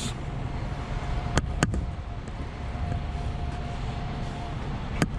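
A vehicle engine idling steadily, with two sharp clicks about a second and a half in and another click near the end.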